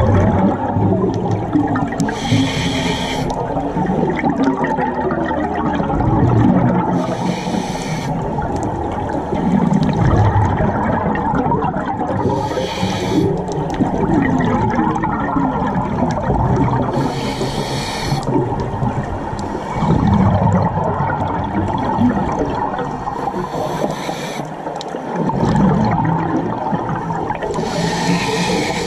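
Scuba diver breathing through a regulator underwater: a short hiss of inhaled air about every five seconds, six times, with the low bubbling rumble of exhaled bubbles between breaths.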